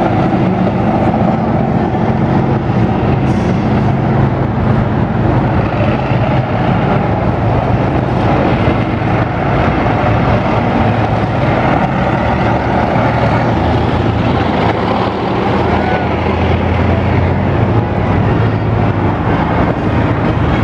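Tank's diesel engine running loudly and steadily as the tank drives past.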